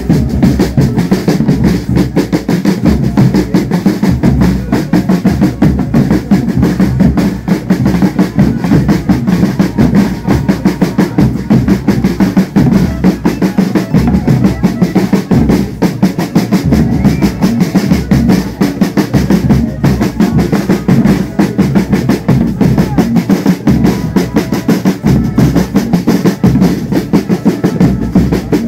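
Loud Folia de Reis drumming: drums beaten in a fast, dense, unbroken rhythm.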